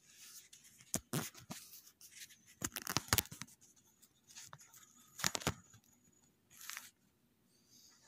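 Handling noise: a scattered run of sharp clicks and short rustles as e-bike wiring, connectors and the phone are handled. The loudest clusters come about three seconds in and again just after five seconds.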